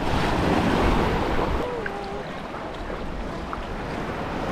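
Small waves washing and breaking in the shallows, with splashing as someone wades in through the surf, and wind on the microphone. The wash is louder for about the first second and a half, then softer.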